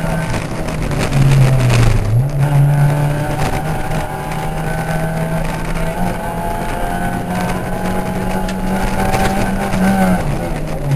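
Ford Puma rally car's engine heard from inside the cabin, pulling hard along a gravel stage. The revs dip about a second in, climb again and hold high, then fall near the end as the driver lifts or changes gear.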